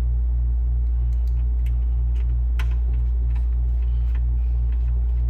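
Steady, loud low hum with a throb about four times a second. Scattered light clicks and taps sound over it, the clearest about two and a half seconds in, as small parts are handled.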